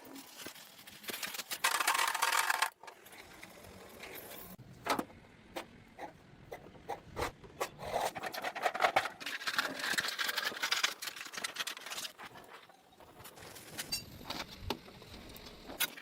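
Hand metalworking on a scooter's steel frame: irregular scraping and rubbing of metal, broken by scattered sharp taps and knocks.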